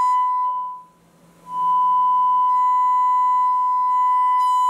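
A steady sine-wave test tone played through a speaker by a Marantz 2215B receiver's power amplifier, carrying a buzz of distortion. It stops under a second in and resumes about half a second later. The buzz shows the amplifier still has a fault, of unknown cause, after one substituted KSC2690 transistor was replaced with the original 2SC1384.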